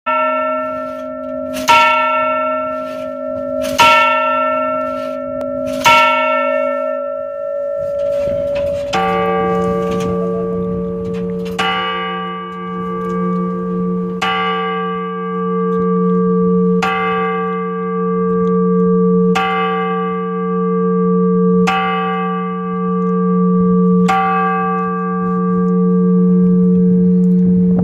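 Two cathedral clock bells struck by their clock hammers: the smaller bell, cast in 1602, rings four strikes about two seconds apart. Then the larger, lower bell, cast in 1516, begins striking the hour, seven strikes about two and a half seconds apart, its deep hum running on between strokes.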